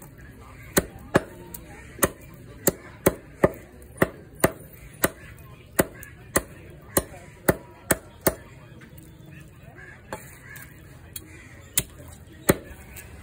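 Heavy knife chopping raw chicken into bony pieces on a wooden chopping block: a steady run of sharp chops, nearly two a second, then a pause and a few scattered chops near the end.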